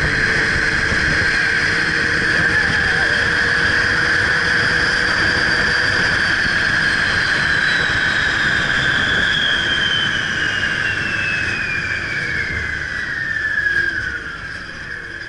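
Ride vehicle running at speed on an open-air track: a steady rush of wind and wheel noise with the drive motor's whine, which glides down in pitch from about nine seconds in as the vehicle slows. The sound then fades near the end.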